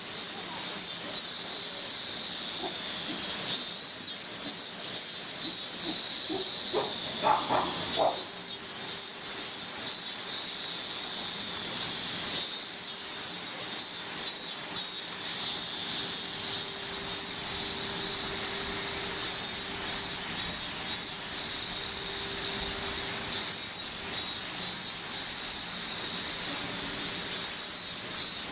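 Cicadas shrilling in a summer chorus, a high, steady sizzle with fast pulsing strokes laid over it.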